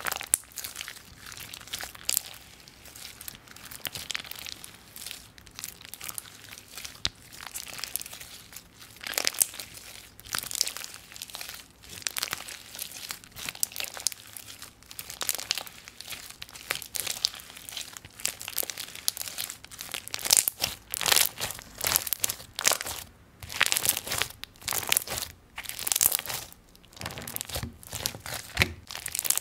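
Clear, bead-filled slime squeezed, kneaded and pressed flat by hand, giving a dense, irregular run of sharp crackles and bubble pops.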